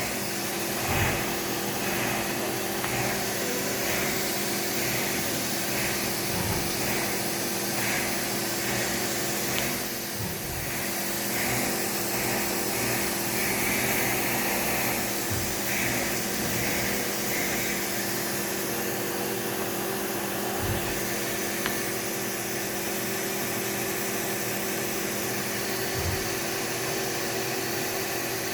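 Haas five-axis CNC mill running: a steady hum and hiss, with a run of short repeated higher-pitched chirps through the first half. The lower part of the hum drops away near the end.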